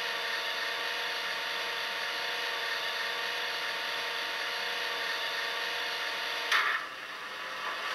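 Digital sound decoder of an ESU HO-scale BR 232 'Ludmilla' model diesel locomotive, playing a steady mechanical running sound with fixed tones through the model's small speaker. About six and a half seconds in it ends with a brief loud burst, and the sound drops away.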